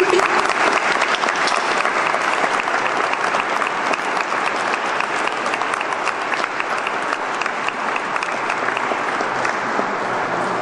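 Congregation applauding: many people clapping steadily, easing off slightly toward the end.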